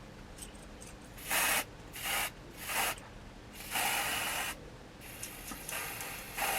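Lace tint spray can hissing in a few short sprays, then a longer spray about four seconds in and fainter hissing near the end: tinting the lace of a wig's part.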